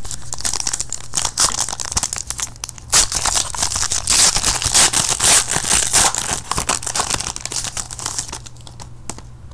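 Foil trading-card pack being torn open and crinkled by hand. The wrapper's crackling is loudest in the middle and thins out near the end.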